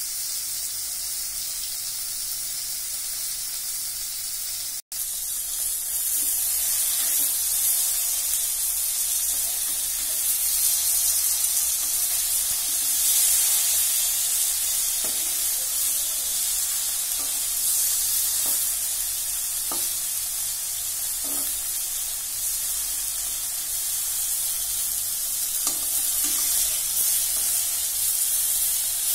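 Paneer cubes sizzling steadily as they fry in oil in an iron kadai. From about six seconds in, a metal spatula scrapes and knocks against the pan now and then as the cubes are turned. The sound drops out for a moment about five seconds in.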